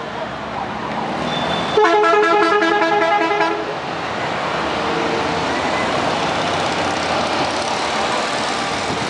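A vehicle horn sounds for about two seconds, starting about two seconds in. Under it and after it, the engines of motorcycle trikes run steadily as they ride past one after another.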